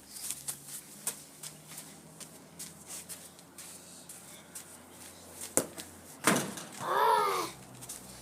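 A football kicked, then a louder thud of the ball striking something a moment later, followed by a short, drawn-out shouted cry that rises and falls in pitch.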